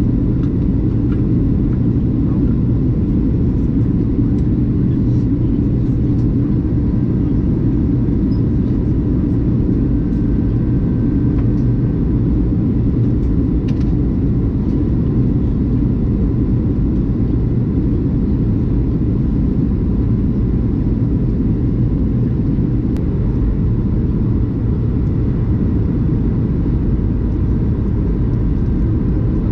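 Steady, loud cabin rumble of a Boeing 737-800, its engine and airflow noise heard from a passenger seat, with a faint steady whine above the rumble.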